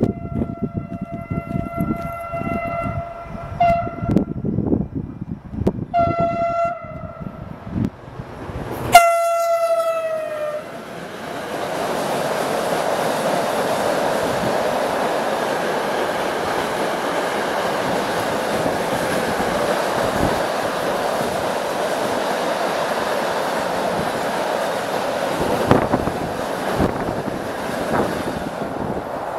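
Freight train's horn sounding as the train approaches: a long blast, a short one, another blast about six seconds in, then the loudest blast about nine seconds in, dropping in pitch as the locomotive passes. Then the steady rolling noise of a long train of car-carrier wagons passing close by.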